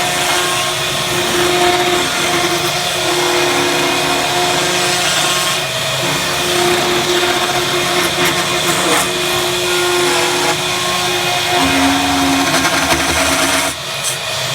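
Electric power tool running continuously, its motor whine shifting in pitch as the load changes, with a brief drop near the end.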